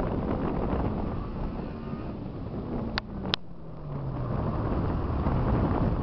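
Honda Civic coupe's engine running under load through an autocross cone course, heard from beside the course with wind buffeting the microphone; the engine note drops a little after three seconds in. Two sharp clicks come close together about three seconds in.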